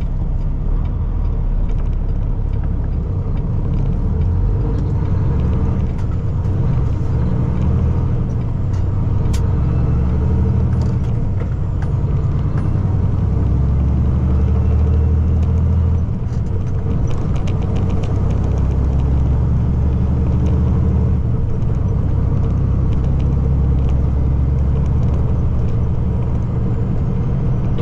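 Peterbilt semi truck's diesel engine and road noise heard from inside the cab while driving, a steady low drone that shifts a few times as the engine speed changes.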